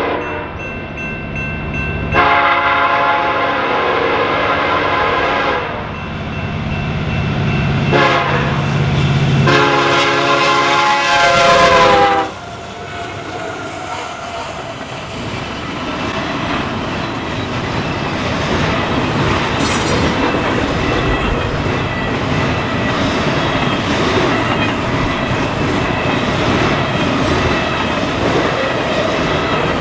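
A Union Pacific freight locomotive's air horn sounds the grade-crossing signal: a long blast, a short one, then a final long blast that drops in pitch as the locomotive passes, about 12 seconds in. After it, the double-stack intermodal cars roll by with a steady rumble and clatter of wheels on rail.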